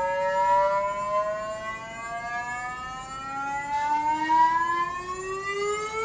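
The Curiosity rover's Sample Analysis at Mars (SAM) instrument vibrating to shake a soil sample down into it, sweeping through frequencies as it goes through a resonance. It sounds as a tone with several overtones, slowly rising in pitch; a second, lower rising tone joins a little after the middle.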